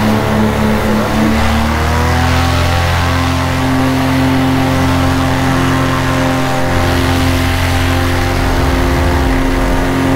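Paramotor engine and propeller running under power, the pitch rising as the throttle opens about two seconds in, then holding steady.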